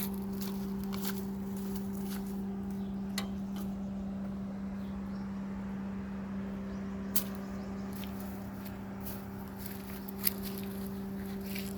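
A steady mechanical hum holding one pitch, with a few sharp clicks or taps about three, seven and ten seconds in.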